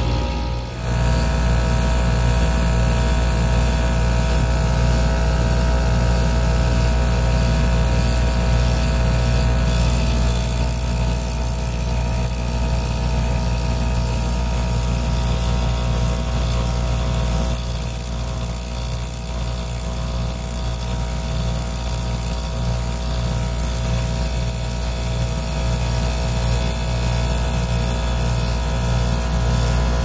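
Copeland scroll compressor of an old heat pump outdoor unit running rough, a steady low hum with a regular pulsing. About seventeen seconds in its tenor changes and drops a little, the sign the owner reads, with a plunging discharge temperature, as the compressor failing mechanically.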